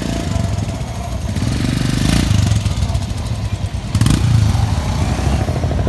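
A group of motorcycles and a scooter riding past one after another, their engines running at low road speed, loudest about two and four seconds in.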